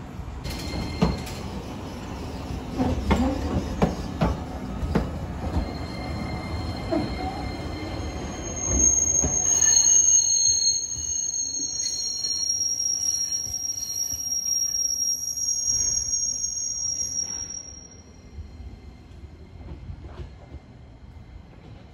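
Iyotetsu streetcar rumbling slowly over points and rail joints, with a run of clacks. From about eight seconds in its wheels squeal on a tight curve in several high, steady tones, which stop and fade out shortly before the end.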